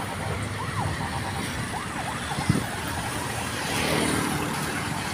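Emergency vehicle siren sounding in quick rising-and-falling sweeps over steady road traffic; the siren stops about halfway through, and a vehicle swells past near the end.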